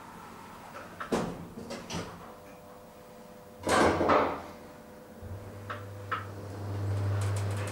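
Elevator car: a few small clicks, then a loud short clunk of a door shutting about four seconds in, after which the elevator's drive starts with a steady low hum that grows a little louder as the car begins to move.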